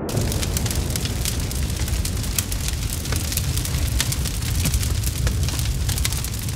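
Fire sound effect: a steady low rumble of flames with many sharp crackles and pops throughout.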